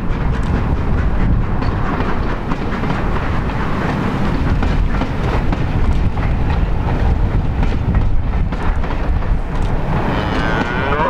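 Rake of passenger coaches behind a steam locomotive rolling past, a steady rumble with wheels clicking over the rail joints. A cow moos near the end.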